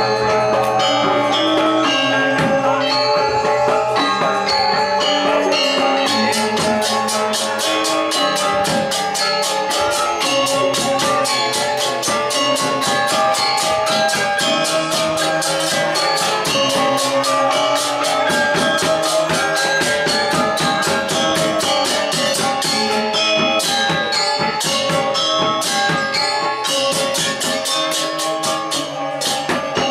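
Balinese gamelan accompanying a Baris dance: bronze metallophones and gongs ringing out held tones, joined about six seconds in by fast, dense cymbal clashes driving a quick rhythm.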